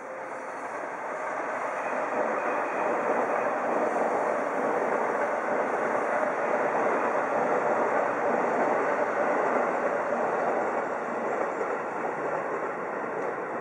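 Electric commuter train running on the tracks, a steady rail and wheel noise that swells over the first few seconds and eases off near the end.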